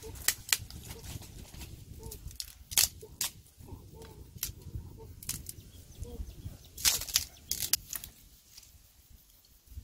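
Dry sticks and twigs snapping and cracking as they are broken and pulled from a pile of brushwood, a sharp crack about once a second.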